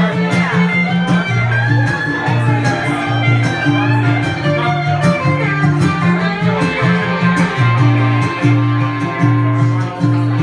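Acoustic and electric guitar playing an instrumental passage of a song together live, with long held low notes under quicker plucked notes.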